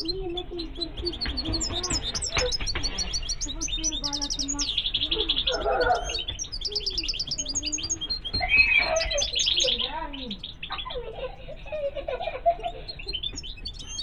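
Caged European goldfinches calling and twittering, a steady stream of quick high chirps broken by short buzzy trills about five and nine and a half seconds in.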